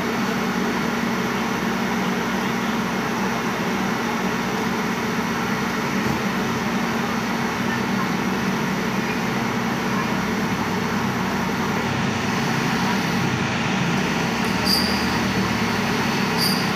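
Heavy diesel engine of a JCB backhoe loader running steadily under load as it works to drag a truck out of a ditch, growing a little louder in the last few seconds. Two brief high chirps sound near the end.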